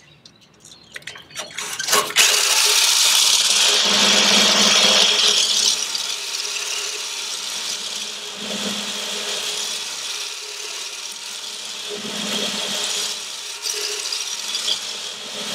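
Power drill spinning a hone inside a boat's stern tube, honing the tube out to take a new cutlass bearing. A loud, steady grinding scrape starts about two seconds in and eases a little after about six seconds.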